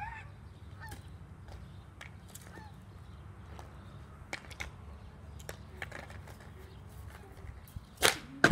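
Hockey stick blade tapping a ball on asphalt in light, scattered clicks while stickhandling, then a shot: a sharp crack of the stick on the ball about 8 seconds in, followed half a second later by a louder bang with a deep thud.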